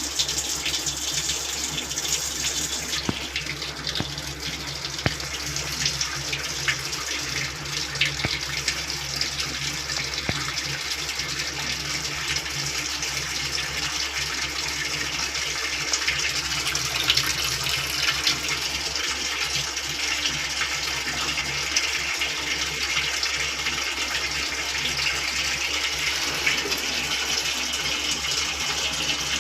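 Water running steadily into a Midea 6.5 kg washing machine as it fills.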